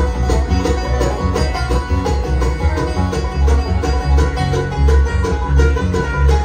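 Bluegrass band playing live: fiddle, banjo, acoustic guitars and bass, with a steady driving rhythm.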